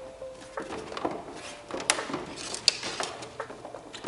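Hard 3D-printed plastic parts being handled and turned over: irregular light clicks and knocks of plastic on plastic and on a tabletop.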